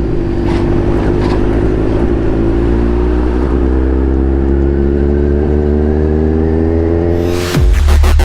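Kawasaki Z1000 inline-four motorcycle engine running under way, its pitch rising steadily as it accelerates. Near the end, loud electronic dance music cuts in.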